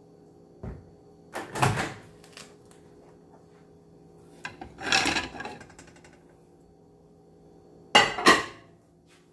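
Kitchen handling noises as a glass plate of potatoes on paper towel is picked up and moved: a few rustling, scraping bursts, then two sharp knocks close together near the end, over a faint steady hum.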